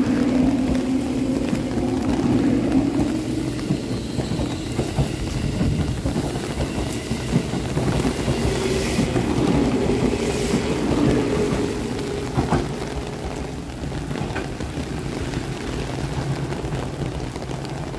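783-series limited express electric train running past along the platform: a steady wheel rumble with a faint motor hum, easing over the last few seconds. Rain hisses throughout.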